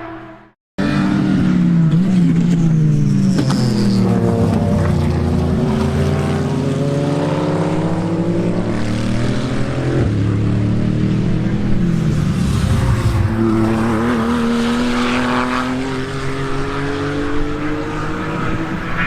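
Racing car engine at high revs on track, its pitch climbing and dropping again and again through gear changes. It cuts in suddenly after a brief silence just under a second in.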